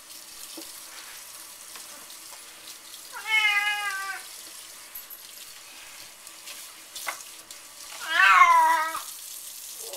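A cat meows twice while a kitchen faucet runs steadily over it in the sink, about three seconds in and again near the end, the second meow louder.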